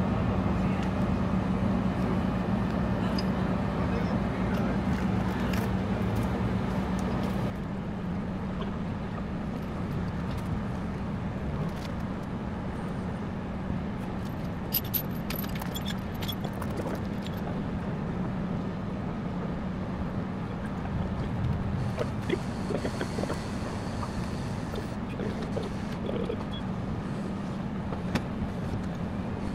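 A vehicle engine idling with a steady low hum under street noise. The sound drops about seven seconds in, and a few faint clicks follow.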